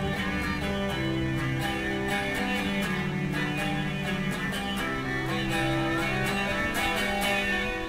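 Street-style duo of an electric guitar, strummed through a small portable amplifier, and a violin playing held, bowed notes over it.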